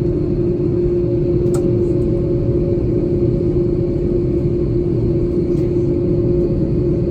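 Cabin noise of an Airbus A330-300 taxiing, heard from a seat over the wing: a steady low rumble with a steady hum, from its GE CF6-80 engines at taxi power and the wheels rolling on the taxiway.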